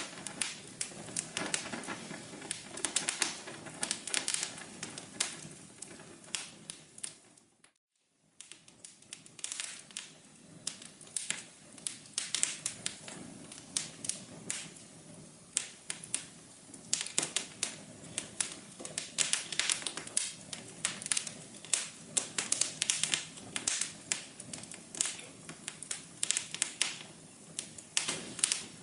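Wood fire crackling in a fireplace: dense, irregular sharp pops and snaps over a steady hiss. About seven seconds in the sound fades out to silence for under a second, then resumes.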